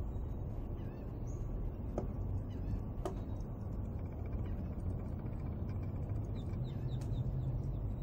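Two sharp, single knocks about a second apart: a pileated woodpecker striking the tree trunk with its bill. Under them runs a steady low rumble, with a few faint short bird chirps.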